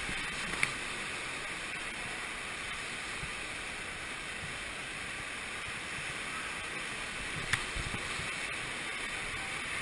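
Water rushing and splashing under a raft sliding through a funnel water slide, a steady wash of noise. Two short knocks break in, about half a second in and again near the end.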